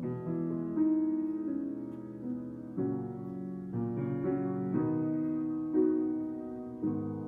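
Upright Steinway piano being played: chords struck every second or so and left to ring under a melody line.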